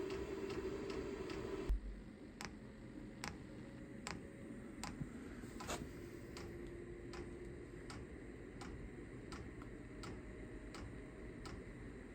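Chinese diesel heater's electric fuel dosing pump ticking over a steady fan hum. The ticks come quickly at first, and after a thump about two seconds in the hum drops and the ticks slow to roughly one a second. The heater has not been primed, so the pump is still drawing the fuel line full.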